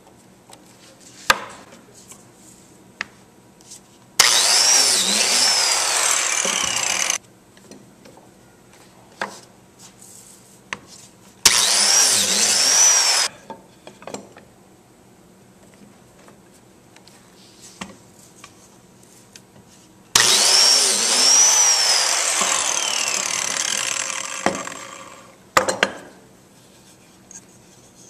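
Biscuit (plate) joiner started three times, each run a few seconds long, its motor whine wavering in pitch as the spinning blade plunges into a hardwood table leg to cut biscuit slots; the last run is the longest and tails off as the motor winds down. Light knocks and clicks of clamping and handling the wood between the runs.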